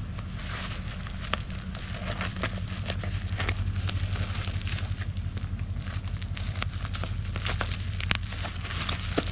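Scissors snipping through black plastic parcel wrap, with the plastic crinkling and crackling as hands pull it open: irregular sharp snips and rustles over a steady low hum.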